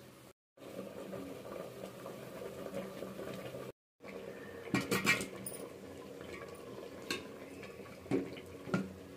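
A metal ladle stirs thick sambar in an aluminium pot, with wet stirring sounds and sharp clinks of the ladle against the pot several times in the second half.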